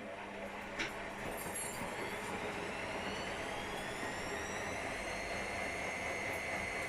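AEG Lavamat washing machine's drum motor spinning up during its service test. It makes a whine that rises in pitch and levels off about five seconds in, over a steady hum, with a click about a second in.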